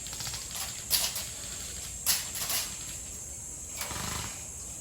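Airsoft guns firing during a game: stretches of rapid clicking shots, with sharper, louder cracks about a second in and again about two seconds in.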